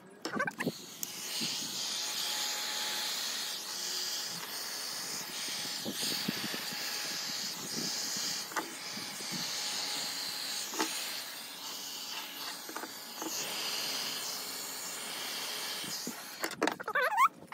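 Heat gun blowing a steady hiss of hot air over wet epoxy resin, cutting off about a second before the end.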